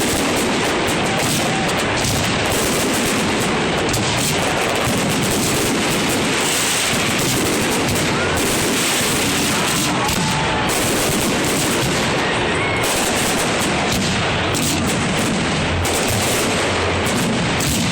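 Fireworks display: a dense, unbroken barrage of overlapping bangs and crackles.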